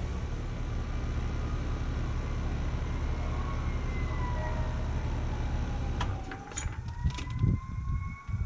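A Carrier Comfort Series heat pump with a Copeland scroll compressor running with a steady hum, then shutting down about six seconds in: the hum cuts out with a few clicks and low thumps, while a whining tone dips and then rises again.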